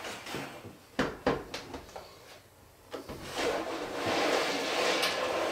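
A plastic tower UPS being handled and set into an equipment rack: a few sharp knocks about a second in, then a longer scraping and rubbing as it is slid into place.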